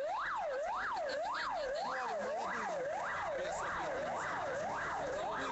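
Emergency vehicle siren in a fast yelp, its pitch sweeping up and down just under twice a second.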